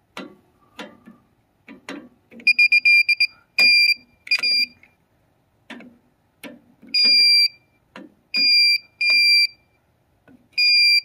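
Circuit Detective breaker-finder receiver beeping in a high tone as it is swept over the breaker panel: a quick run of short beeps a couple of seconds in, then longer beeps about a second apart. The beeping picks out the breaker that feeds the circuit with the transmitter plugged in. Light clicks and knocks fall between the beeps.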